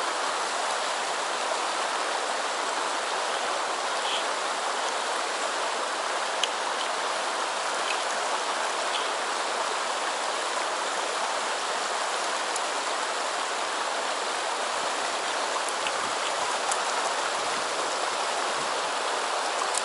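Shallow mountain stream rushing steadily over rocks in a white-water riffle, with a few faint ticks.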